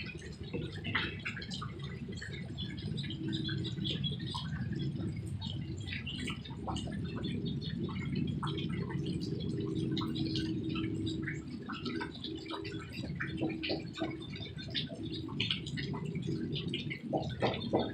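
Rain dripping and pattering, scattered ticks over a steady low rumble with a faint steady hum in it; near the end the drips come as a run of sharper, evenly spaced taps.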